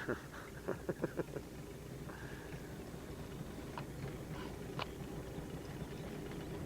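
Outboard motor running steadily as the boat trolls, with a cluster of sharp knocks in the first second and a half and a few fainter clicks later.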